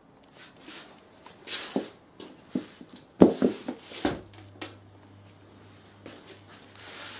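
Two cats scuffling on a wooden floor: scrabbling and rustling in short rushes, with a few knocks and thumps. The loudest thump comes about three seconds in.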